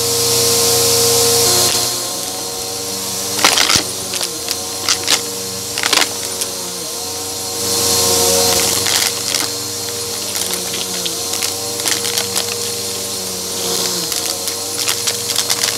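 Bissell upright vacuum with its brushroll running over shag carpet, picked up by a microphone mounted on the vacuum: a steady motor hum under airflow hiss that swells twice. A few seconds in comes a run of sharp clacks, with smaller rattles near the end, as coins and pebbles are picked up and rattle through the machine.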